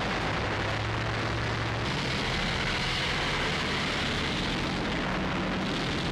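Tank engine running: a steady, even noise with a low hum and hiss and no shots. The sound's character shifts about two seconds in.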